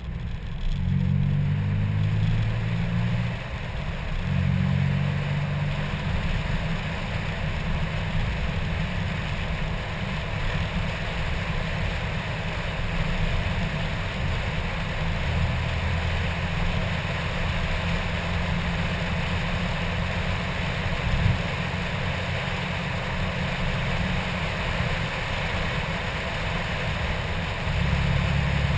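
2003 Nissan Maxima's 3.5-litre V6 under full throttle on a standing-mile run. The engine note breaks off briefly a few times in the first four seconds as it shifts up. It then settles into a long, steady pull mixed with heavy wind and road rush at high speed.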